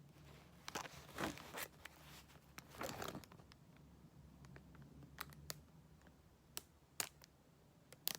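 Small plastic bags of diamond-painting drills (resin beads) being handled: crinkly rustling in the first few seconds, then a few sharp clicks and taps.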